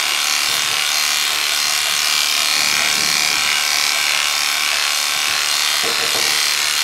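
Electric dog-grooming clippers with a guide comb running steadily as they shear through a poodle's wet, felted coat, which comes off in one piece.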